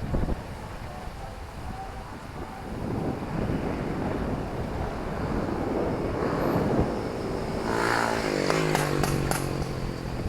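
Street traffic: a motor vehicle grows louder over several seconds and passes close about eight seconds in. Its engine note drops in pitch, then holds as a steady low hum.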